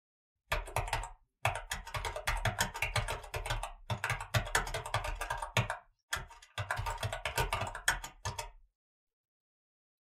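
Fast typing on a mechanical keyboard: rapid key clicks in three runs separated by brief pauses.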